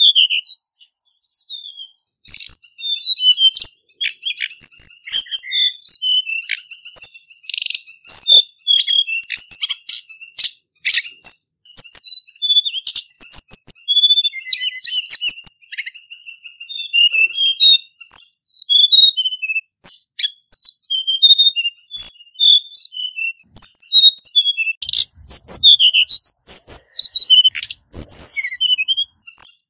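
Male Hill Blue Flycatcher singing: rapid, varied phrases of high sweet notes with a few fast trills, almost without a break.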